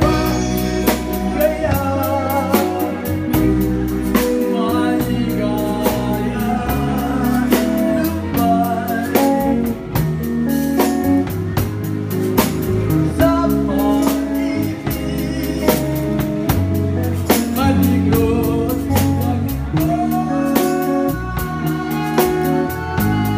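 Live band playing a Filipino pop song: a man singing the melody while drum kit hits and cymbal strikes keep a steady beat, with bass notes underneath.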